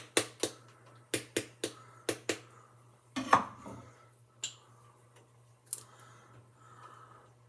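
Sharp clicks and knocks from hands twisting and gripping at a stuck plastic cap on a barbecue sauce bottle, that will not come loose: quick irregular snaps through the first three seconds, a louder, longer scrape about three seconds in, then a few scattered clicks.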